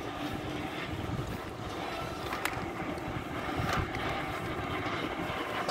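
Wind buffeting a phone's microphone over a steady hum of road traffic, with a few faint ticks.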